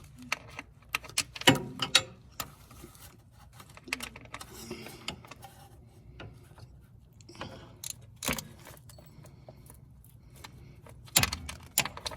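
Metal hand tools clinking and knocking: a socket and breaker bar being fitted to and worked on a transmission fill plug. A scatter of sharp clicks, with a few louder knocks.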